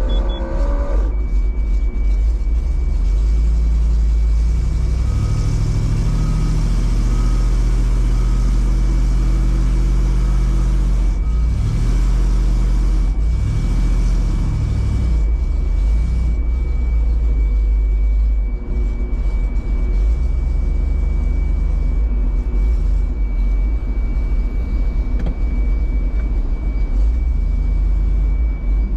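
A vehicle engine running under way with a deep, loud rumble, its pitch rising and falling for a stretch early on, then steadier, with a thin steady whine over it.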